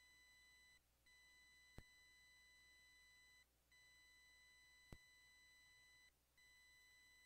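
Near silence with a faint, high, steady electronic tone that cuts out briefly about every two and a half seconds, and two faint clicks about three seconds apart.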